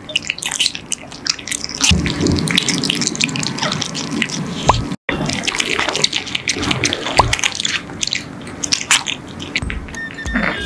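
Exotic shorthair cats chewing and slurping long strips of raw meat, making a steady run of quick, wet smacking clicks.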